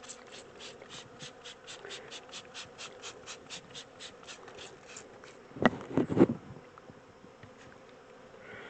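Honey bees humming around an open hive, under a rapid, even series of short raspy strokes, about four a second, that stops about five seconds in. Around six seconds in comes a cluster of loud knocks, likely hive parts being handled.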